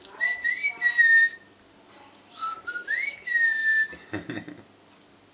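A person whistling two calls: the first a held note with a slight upward lift, the second starting lower, sliding up and then holding steady.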